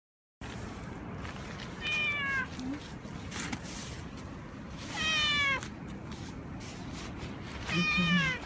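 Tomcat in heat meowing three times, each call about half a second long and falling in pitch, spaced about three seconds apart: calling typical of a male cat in season.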